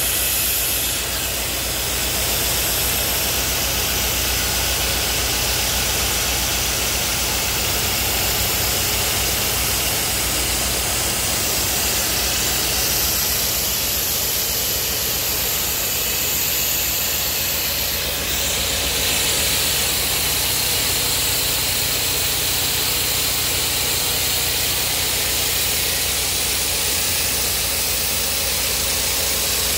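Large CNC machine rough-cutting a cast steel ring: a steady machining noise of low hum and high hiss. The high hiss changes character about 18 seconds in.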